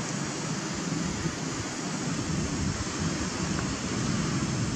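Steady rushing background noise with no distinct events, heaviest in the low range.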